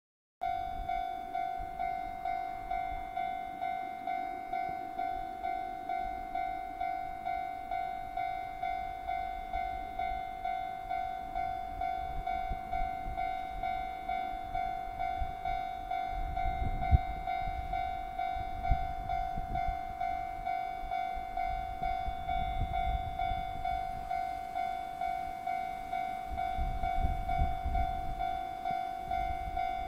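Japanese railway level-crossing alarm ringing its electronic bell: one steady pitched ding repeating evenly, about one and a half strikes a second. From about halfway in, a low rumble comes and goes under it.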